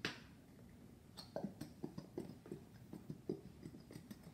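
Plastic squeeze bottle of white school glue being squeezed upside down over a plastic tub. After a sharp click at the start, it gives a run of short, faint sputters, about two or three a second, as glue and air are forced out of the nozzle.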